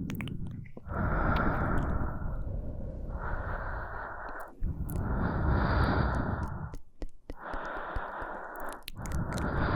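Slow breathing right up against an ASMR microphone: about five long, airy breaths in and out, each about two seconds, with the air puffing on the mic.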